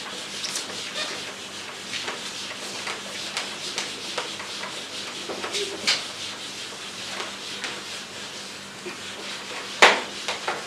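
A whiteboard eraser rubbing across a whiteboard in repeated wiping strokes, with one sharp knock near the end.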